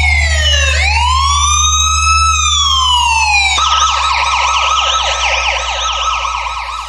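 Electronic police siren sound, bass-boosted, over a steady deep bass drone. The wail falls, sweeps back up, holds and slides slowly down, then about halfway through switches to a rapid yelp.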